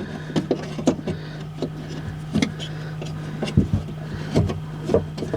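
Irregular plastic clicks and knocks from fumbling with the window motor's wiring plug inside a car door panel, over a steady low hum.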